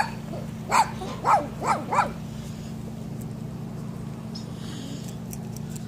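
A dog barking: about five short barks in the first two seconds, then it stops, leaving a steady low hum.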